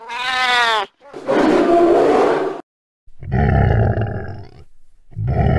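Animal roar sound effects: a short cat-like yowl that rises and falls, then a roar, and after a brief gap two alike low, growling roars about two seconds apart.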